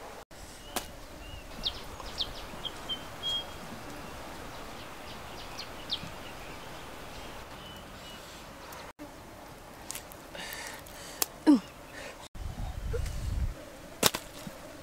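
Light rustles and clicks of a fishing net being handled as fish are worked free of it, over a steady outdoor hiss with a few short bird chirps. A brief low rumble comes near the end.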